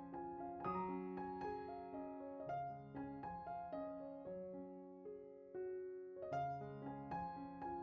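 Background music: a gentle piano melody with chords, notes struck every fraction of a second.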